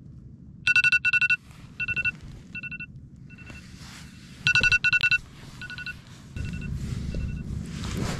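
Mobile phone alarm going off: repeated pairs of electronic beeps, loud about a second in, quieter for a few seconds, loud again about four and a half seconds in, then fading. A low rustling builds near the end.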